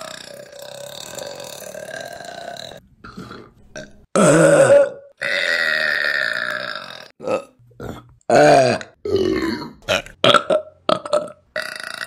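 A string of women's burps, one after another. Two loud ones come about four and eight and a half seconds in, a long drawn-out one follows the first, and several short ones come in quick succession near the end.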